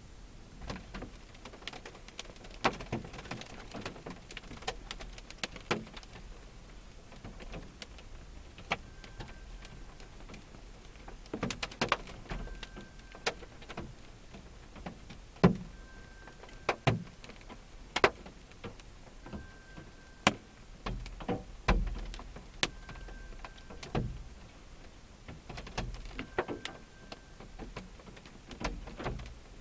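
Rain striking the roof and windshield of a parked car, heard from inside the cabin: irregular sharp taps, a few a second, some much louder than others. In the second half a short faint beep repeats about every three and a half seconds.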